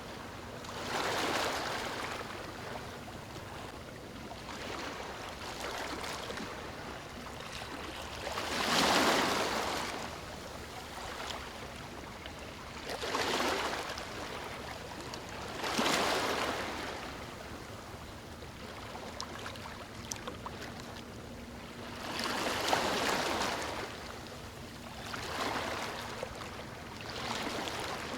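Ocean waves washing onto a beach: a steady surf hiss, swelling about seven times as waves break and fade, the biggest about nine seconds in.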